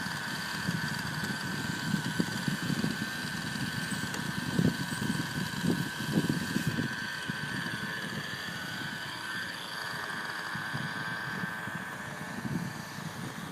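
Electric RC plane's E-flite Power 90 brushless motor and 16x8 propeller whining steadily as the plane flies. The pitch dips and wavers briefly a little past the middle, as the throttle changes, then settles again.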